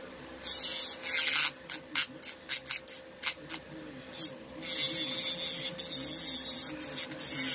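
Electric nail drill (e-file) with a safety bit grinding the surface of an artificial nail, a gritty rasping that comes in bursts. First there is one burst, then a run of short touches, and from about four seconds in a longer stretch of steady grinding.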